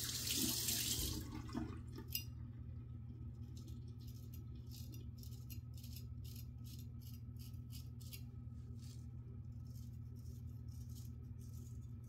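Bathroom tap water running into the sink for about a second, then shut off with a click. Then the vintage Giraffe straight razor scraping through lathered stubble in short, quick strokes, about two or three a second.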